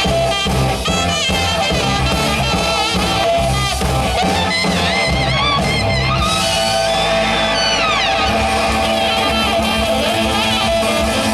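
Live rock band playing an instrumental passage, with no singing, over a steady beat. A lead line bends and slides in pitch through the middle.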